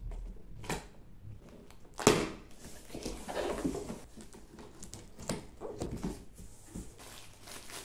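A cardboard box being cut and opened with small scissors: a few sharp knocks, the loudest about two seconds in, with rustling and scraping of cardboard and packing between them.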